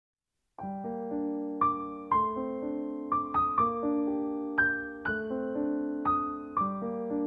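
Background piano music: a melody over held chords, with notes struck about twice a second. It begins about half a second in, after a moment of silence.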